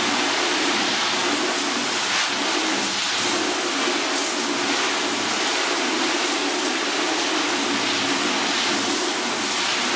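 Steady splashing hiss of a solid water jet from a hose nozzle playing over a car bonnet, rinsing panels freshly treated with spray sealant to test how the water sheets off.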